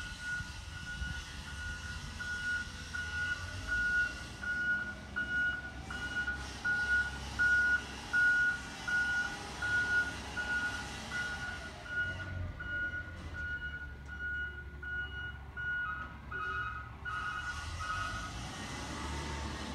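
Reversing alarm of a natural-gas automated side-loader garbage truck backing up: an even beep-beep about one and a half times a second over the truck's low engine running. The beeping stops shortly before the end.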